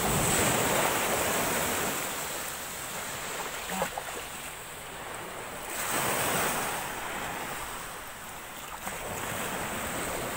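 Small waves washing up a sandy shore, the wash swelling at the start and again about six seconds in. There is a single small click near the middle.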